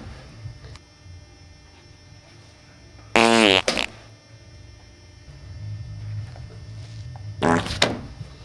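Two loud farts, each about half a second long, one about three seconds in and one near the end.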